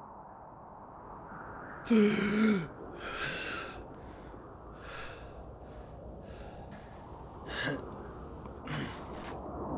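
A man gasps with a short, falling voiced groan about two seconds in, then breathes heavily in a string of ragged breaths over a steady background hiss.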